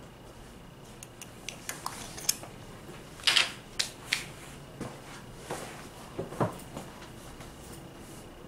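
Light clicks, taps and clinks of small jars and nail tools being handled on a tabletop, the sharpest cluster about three to four seconds in, followed by a few softer knocks.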